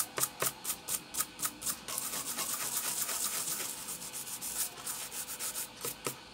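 A brush scrubbing alcohol-wet flux off a ZOTAC GeForce GTX 1050 Ti graphics card's circuit board around the GPU chip. It goes in quick back-and-forth strokes, about four a second, which run together into a steady scrub in the middle before separate strokes return.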